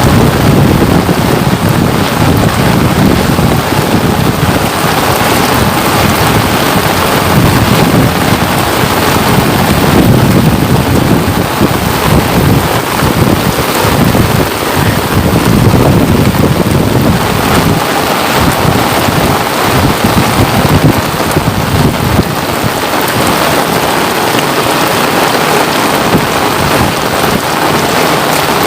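Steady rain falling as a dense, even hiss. A low rumble runs under it and fades about two-thirds of the way through.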